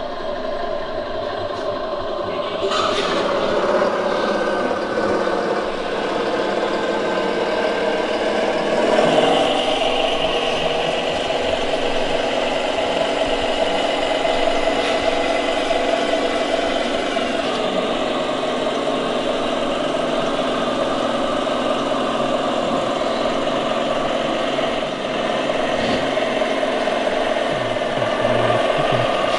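Scale RC model MAN 6x6 dump truck driving over sand, its running sound steady and engine-like. It gets louder about three seconds in and swells briefly around nine seconds.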